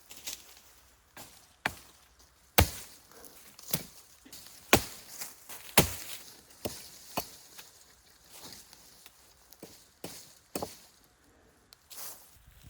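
Sharp, irregular chopping strikes on wood: about eight loud hits spaced unevenly, with softer knocks between them.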